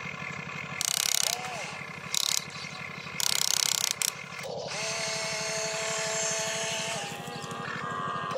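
RC excavator's electric motors and gearboxes whirring as the bucket digs into stony dirt and the boom lifts. There are three loud bursts of rattling, ratchet-like grinding in the first few seconds, then a steady whine while the loaded boom rises.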